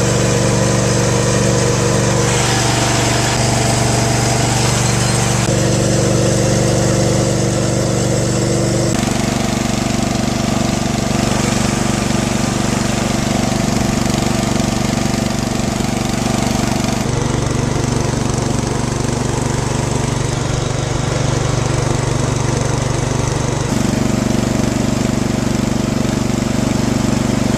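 Riding lawn mower engine running steadily and loud, with its tone shifting abruptly several times.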